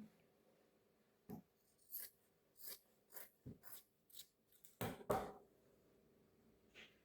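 Scissors snipping: a run of about ten short, crisp snips at an uneven pace, with the loudest two close together about five seconds in and a faint last snip near the end.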